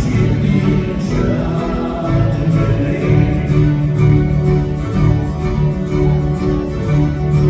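Live band playing a song, with guitar and a strong steady bass line.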